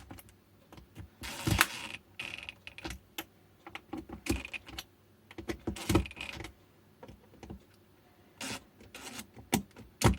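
Irregular clicks, taps and short rattles of hands handling an e-bike battery pack's plastic casing and parts, with a brief rustle about a second and a half in.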